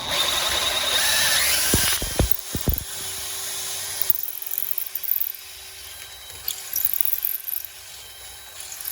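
Electric drill boring a 5/16-inch bit through the inside of a metal air fitting to remove its flow-restricting lip. There is loud cutting and grinding for about the first two seconds, then a few knocks, then the drill runs more quietly with a steady hum and scattered scraping.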